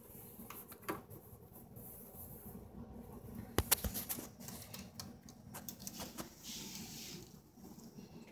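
Clear plastic exercise ball with a guinea pig inside, rolling over a hard floor and making irregular light clicks and rattles, with a sharper knock about three and a half seconds in.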